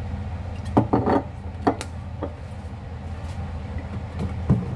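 Sauce bottles and kitchen things being handled on a countertop: a few sharp knocks and clicks, a cluster about a second in, another shortly after, and two more near the end, over a steady low hum.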